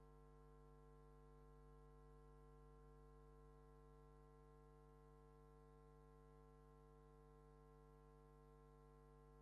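Near silence: only a faint steady electrical hum, unchanging throughout.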